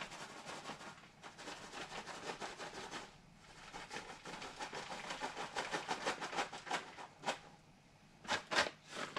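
Soft rustling and crackling of shredded vegan cheese being scattered and rubbed between fingers onto pizza rolls, with a brief pause about three seconds in and a couple of louder rustles near the end.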